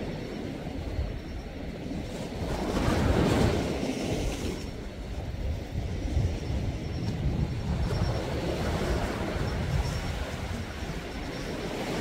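Sea waves surging and washing onto the shore, with one swell about three seconds in, followed by a steady low rumble through the middle.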